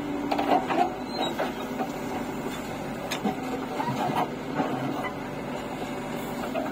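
JCB 3DX backhoe loader's diesel engine running steadily under load as the backhoe swings a bucket of soil over and dumps it into a tractor trolley, with a few short knocks from the bucket and the falling soil.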